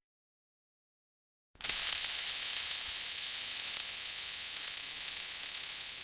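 Welding: a steady, crackling hiss that starts suddenly about one and a half seconds in, after dead silence.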